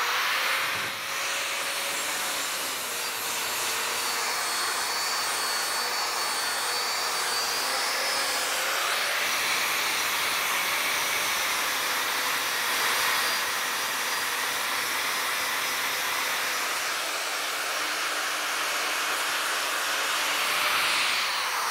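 Flex angle grinder grinding down weld seams on a welded steel frame: a continuous hiss of the disc on steel over the motor's steady whine, which wavers a little in pitch.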